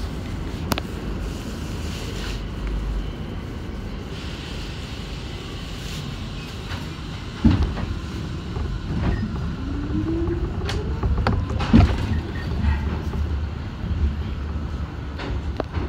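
New York City subway R62 car standing at a station with a steady low rumble, two sharp knocks, then a rising whine as the train starts to pull away.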